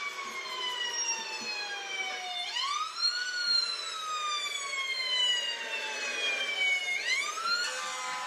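Fire truck siren wailing through an iPad speaker: its pitch sinks slowly, sweeps back up quickly about two and a half seconds in, sinks slowly again, and rises once more near the end.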